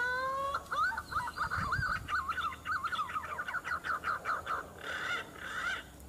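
Green pigeon's whistled song: a long rising whistle, then a fast, wavering run of warbled notes that ends shortly before the close.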